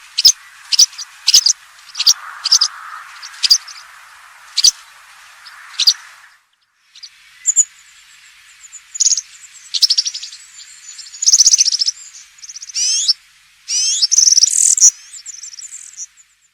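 European serin song from a field recording. First comes a string of sharp, high single notes about two a second over a steady background hiss. After a short break there is a fast, high, jingling song of buzzy trills and rising glides, which cuts off near the end.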